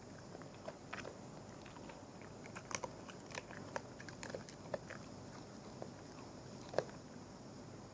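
A small pet gnawing and chewing food: irregular crisp crunches and clicks, clustered in the middle, with one louder crack near the end.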